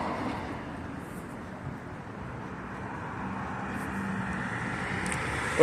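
Road traffic noise on a city street: a passing vehicle fading over the first second or two, then steady traffic noise with a faint low hum.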